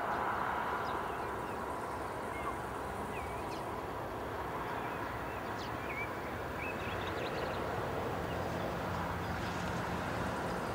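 Wind buffeting the microphone in open country, with several short, scattered bird chirps. About eight seconds in, a faint low drone begins underneath: the train starting to be heard as it approaches.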